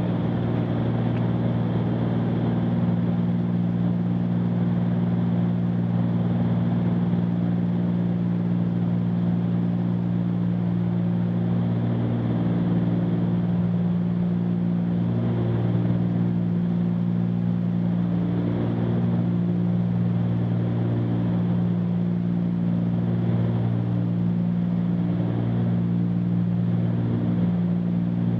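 Cessna 310Q's twin piston engines and propellers droning steadily at climb power, heard in the cockpit, with the pitch wavering slightly every few seconds.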